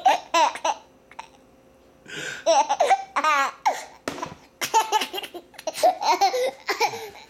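A baby laughing in repeated bursts of giggles, with a short pause about a second in before the laughter picks up again and runs on.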